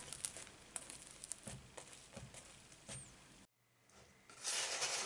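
Potato flatbread sizzling faintly in a nonstick frying pan, with a few light ticks. The sound cuts off abruptly about three and a half seconds in, and a louder burst of hiss follows near the end.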